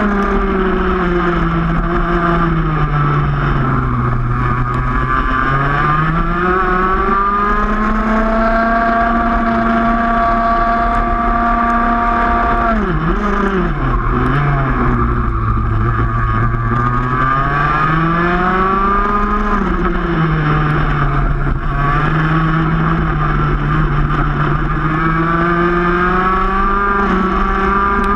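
Racing kart's two-stroke engine heard from on board at full race pace, its revs climbing on the straights and falling away into the corners, several times over.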